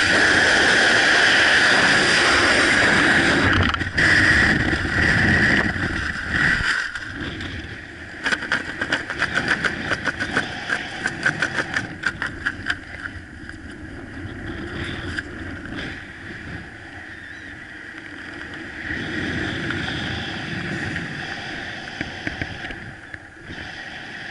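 Wind rushing loudly over the camera's microphone in free fall. About four seconds in it drops away unevenly as the parachute opens. From about eight to thirteen seconds the canopy fabric flutters rapidly, then a softer, uneven wind noise follows as it descends under the canopy.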